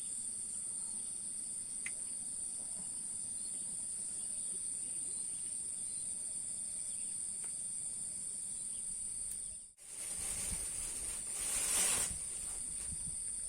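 Steady, high-pitched insect chorus of crickets or cicadas. About ten seconds in, the sound briefly cuts out, and a louder rush of noise follows for about two seconds.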